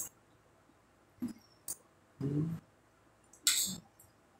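Sparse meal-table sounds: a couple of light clicks, a short low hum of a voice a little past two seconds in, and a brief hiss about a second later.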